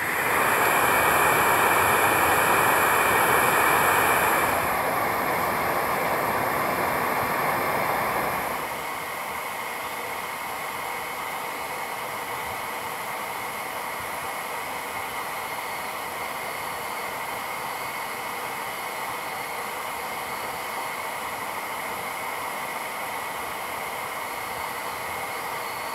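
Steady hissing of a pressurised fuel burner, louder at first and dropping to a lower, even hiss about eight seconds in.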